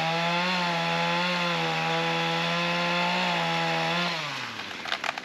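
Cordless electric chainsaw motor running at a steady pitch, then released about four seconds in so that it winds down with a falling whine and stops.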